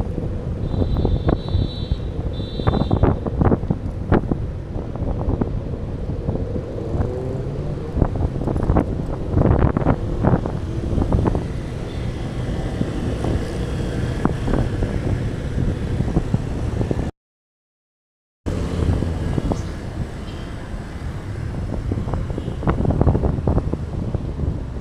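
Wind buffeting the microphone and road and traffic noise while riding a fixed-gear bike among passing motor vehicles, with frequent short knocks from bumps in the road. Two short high tones sound about a second in, and the sound cuts out completely for about a second past the middle.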